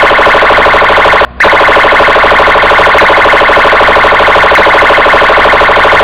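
Police car siren sounding continuously with a fast pulsing warble, broken by a brief dropout about a second in.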